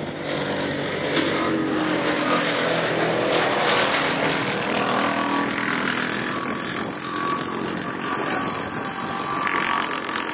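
Motor engine running steadily at an even pace, with a rush of wind noise over it.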